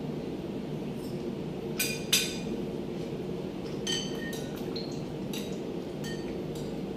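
Forks and spoons clinking against plates as two people eat: a handful of short, sharp clinks, the loudest about two seconds in, over a steady low hum.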